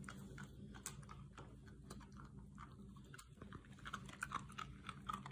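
Miniature schnauzer crunching a hard bone-shaped dog biscuit: faint, irregular crunches and clicks of teeth.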